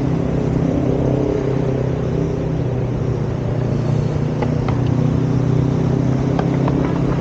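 A motor vehicle engine running steadily at an even pitch, with a few light clicks near the middle and end.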